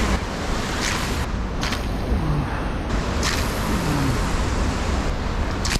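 Steady rush of ocean surf washing over the rocks at the foot of the sea cliff, with wind rumbling on the microphone and a few brief hissing surges.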